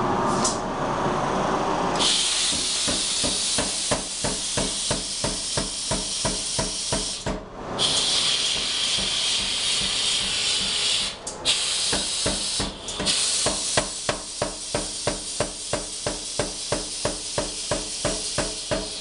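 Power hammer striking a red-hot steel bar in rapid, regular blows as it is drawn out into a knife blade, over a loud hiss that starts about two seconds in and drops out briefly a few times.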